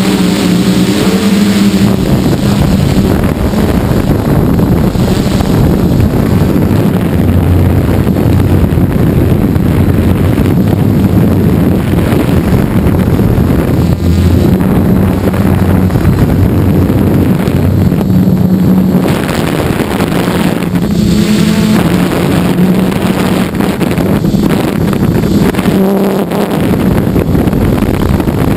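Gaui 330X-S quadcopter's brushless motors and propellers buzzing steadily, recorded by the GoPro riding on it, with heavy wind noise on the microphone. The pitch shifts up and down a little as the throttle changes, most clearly about two-thirds of the way through.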